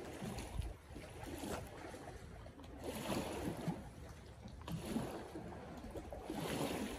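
Small lake waves lapping against moored skiffs and a stone wall in soft, irregular splashes.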